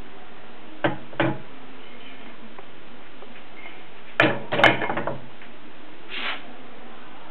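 Knocks and clatter from a wooden board on an antique cast-iron balance scale as it is handled. Two light knocks come about a second in, then a louder cluster of knocks and rattles around four to five seconds in.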